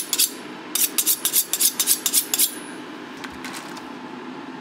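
A kitchen knife being sharpened in quick, even metallic strokes, about five a second, which stop about two and a half seconds in. A steady low hum runs underneath.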